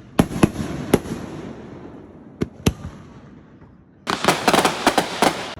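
Consumer fireworks going off: a handful of sharp, separate bangs in the first three seconds, then a dense run of rapid crackling pops starting about four seconds in.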